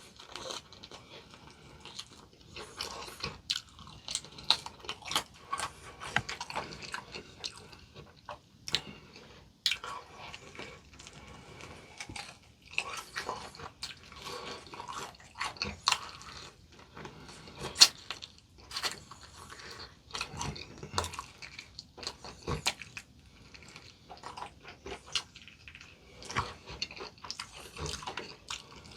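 Close-miked chewing of crispy potato-coated fried chicken: a steady run of irregular crunches and bites, with one sharp crunch about eighteen seconds in.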